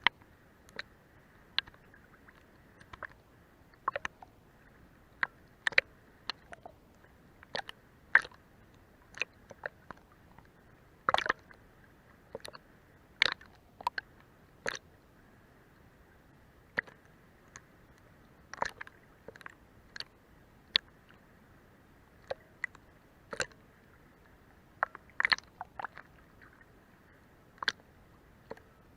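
Sea water lapping against a boat's hull from underneath: irregular short slaps and splashes, roughly one or two a second, over a faint steady wash.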